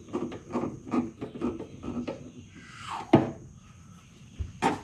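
Hand tool tightening screws into brittle old plastic interior trim panels of a 1978 Corvette: a run of short, rhythmic rasping strokes, about three a second, then a brief swish and two sharp knocks about a second and a half apart.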